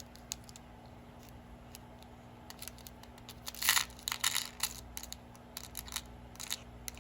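Small plastic packets of beads being handled: scattered light clicks and crinkling rustles, busiest a little past the middle.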